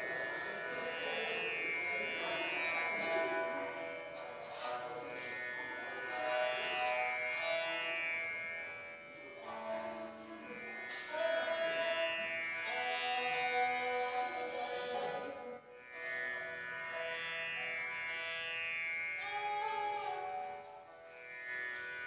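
Instrumental background music in an Indian classical style, led by a string instrument playing sustained notes with repeated slides in pitch.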